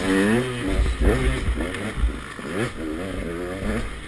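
KTM 200 XC-W's two-stroke single-cylinder engine revving up and down again and again as the throttle is worked over rough dirt, about five rises in pitch, with a heavy low rumble on the microphone underneath.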